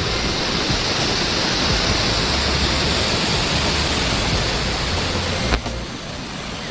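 Steady rush of Dainthlen waterfall, water plunging about 80 feet. About five and a half seconds in there is a brief click, and after it the rush is a little quieter.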